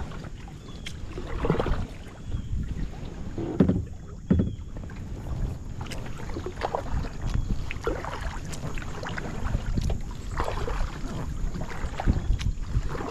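Water sloshing and splashing around a kayak in irregular bursts, over a steady low rumble of wind on the microphone.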